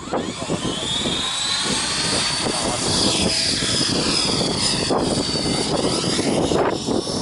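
Radio-controlled helicopter, a T-REX 500 imitation, with its motor and rotor whine rising in pitch over the first few seconds and then holding steady over a dense rushing noise.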